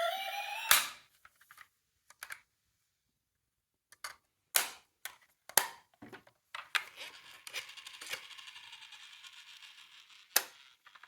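A toy mini car's electronic siren wailing, cut off by a sharp plastic click just under a second in. Then scattered light plastic clicks and knocks from the toy cars, and a steady rattle for about three and a half seconds, ending in another click.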